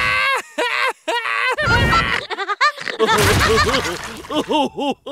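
Men laughing heartily in repeated bursts. The laughter becomes a quick run of rising-and-falling ha-ha pulses in the last two seconds.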